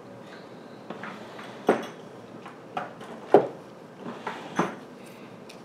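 Clicks and clacks of small hard jewelry findings being handled, as an earring hook is picked out from among them. There are about half a dozen irregular sharp clicks, the loudest a little past the middle.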